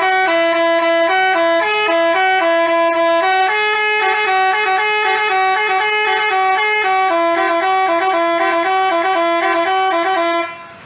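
Telolet basuri musical bus horn playing a quick melody, two notes at a time, the pitches stepping up and down; it cuts off sharply near the end.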